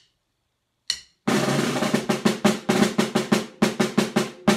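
Snare drum played with wooden sticks: after a single sharp click about a second in, a short syncopated practice passage of quick strokes with drags, first a close-packed flurry, then a run of separate hits.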